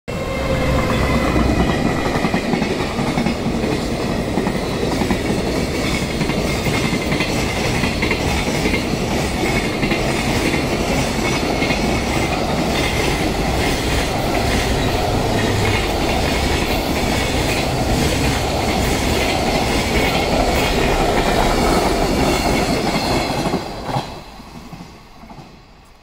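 A JR Freight electric locomotive and its long train of container wagons passing close by: a steady, loud rumble of wheels on rail with rhythmic clicking over the rail joints, and a high whine in the first few seconds. The noise falls away quickly near the end as the last wagon passes.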